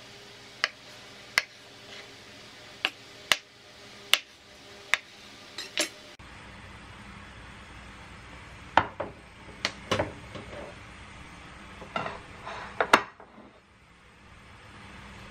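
A kitchen knife knocking on a cutting board as it slices through a block of tofu, about eight sharp knocks over six seconds. After that, a wooden spoon clinks and knocks against a stainless steel saucepan as perilla oil is spooned in.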